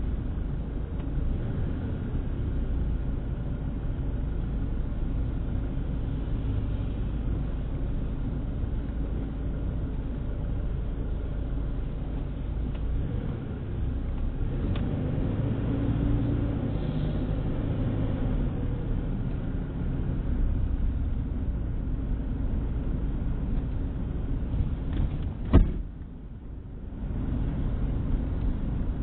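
Car driving, heard from inside the cabin: steady engine and road rumble, the engine note shifting for a few seconds in the middle. A single sharp click near the end, after which the sound briefly drops away before the rumble returns.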